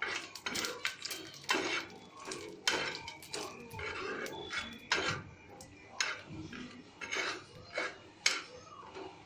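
Metal spatula scraping and clinking against a metal cooking pan while stirring ginger paste and spices frying in ghee, in a run of irregular scrapes and knocks.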